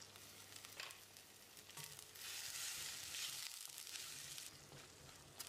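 Pepper-garlic masala paste sizzling faintly in oil in a steel kadai, with water just added and a wooden spatula stirring it; the sizzle grows louder for about two seconds in the middle.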